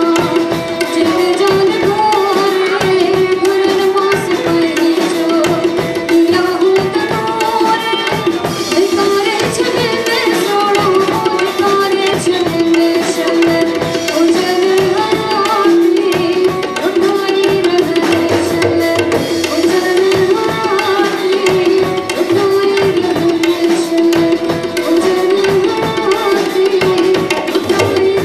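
Live Sindhi song: a woman singing into a microphone over fast, continuous tabla drumming, with a steady held note underneath.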